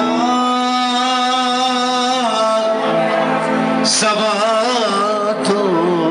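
A man sings a Greek song through a microphone and PA, with keyboard accompaniment. He holds one long note for about two seconds, then sings a wavering, ornamented line.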